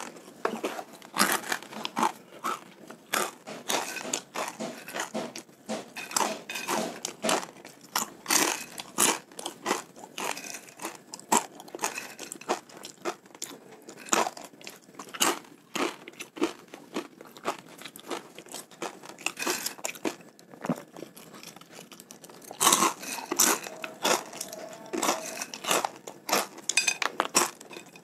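Crispy fried macaroni snack (Bon Cabe Makaroni Krispi) being chewed close to the microphone: a fast, irregular run of crisp crunches, busiest about three-quarters of the way through.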